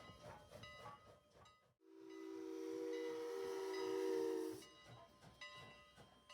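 Steam locomotive's chime whistle blowing one long blast of almost three seconds, several tones sounding together, over the hiss and running noise of the train.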